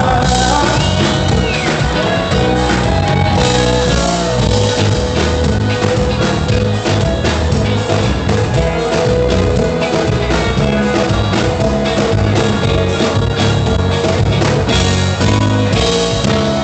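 Live sertanejo band playing an instrumental passage through a concert PA, with a steady drum beat and bass under held melody notes.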